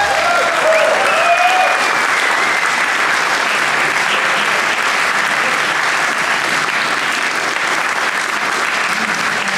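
Concert audience applauding, with a few cheers and a falling whistle in the first two seconds.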